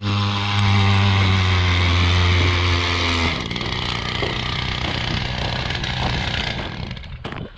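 Power ice auger running and drilling a hole in the ice, a steady motor sound. It is loudest for about the first three seconds, then drops to a lower, lighter running sound that fades out near the end.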